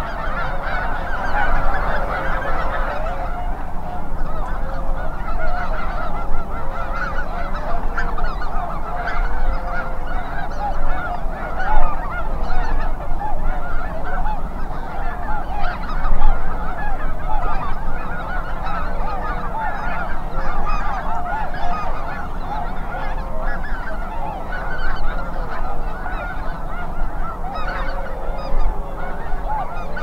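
A huge flock of snow geese calling in flight, hundreds of overlapping calls blending into one continuous din, over a low rumble of wind on the microphone.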